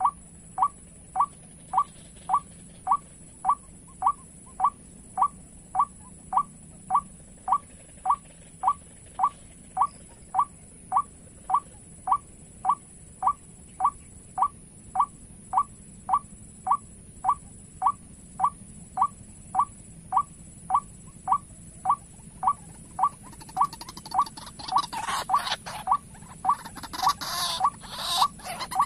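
White-breasted waterhen call played back on a loop from a bird-lure speaker: identical short notes, about two a second, perfectly evenly spaced. Rustling and scuffling noises join in near the end.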